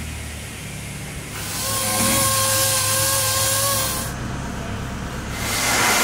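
A power tool running for about two and a half seconds, a steady hissing whir with a held whine. A second stretch of hiss with a higher whine starts near the end.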